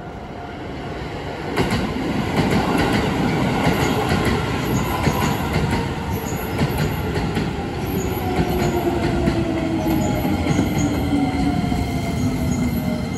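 Keisei 3000-series electric commuter train arriving about a second and a half in and slowing over the level crossing into the station. Its wheels clatter over the rail joints and its motor whine falls in pitch as it brakes. A level-crossing bell rings steadily underneath.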